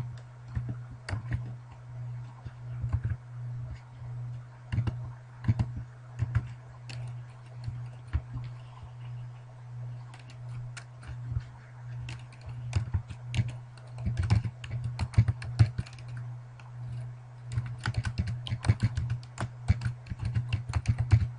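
Computer keyboard typing: scattered keystrokes and clicks, with quicker runs of typing past the middle and near the end, over a steady low electrical hum.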